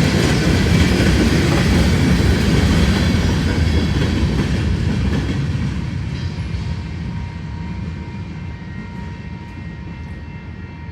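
Train rolling past on the tracks, a steady noise of wheels on rail that fades away from about halfway through as the train moves off.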